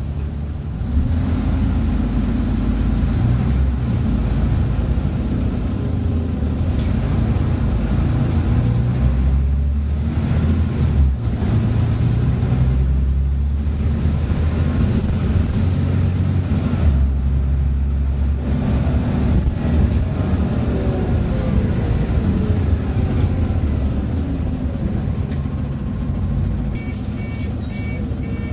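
Scania N94UB bus's diesel engine and automatic gearbox, heard from inside the saloon, pulling under acceleration through several gear changes; about 13 seconds in the gearbox kicks down and the engine revs up hard under full throttle. Later comes a falling whine, and near the end a run of short electronic beeps.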